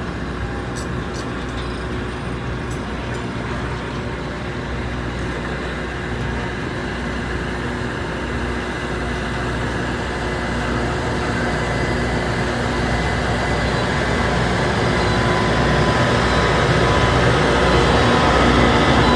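Loram rail grinder running on the track: a steady, loud mechanical din of engines and grinding with several steady hum tones, getting gradually louder.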